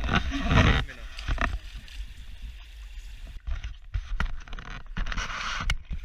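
Shallow creek water running over a gravel riffle, under a steady low wind rumble on the microphone, with a few brief scuffs and rustles at the bank.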